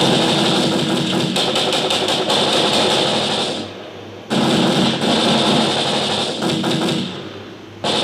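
Playback of a layered gunfight sound effect: many gunshots and impacts packed densely over a steady hiss. It fades away and starts again abruptly about four seconds in, and again near the end.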